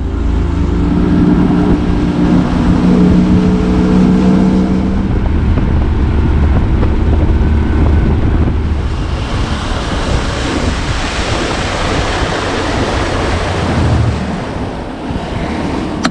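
Outboard motor driving a small fishing boat at speed, with wind rushing on the microphone and the hiss of the wake spray. The wind and spray noise grows louder about halfway through.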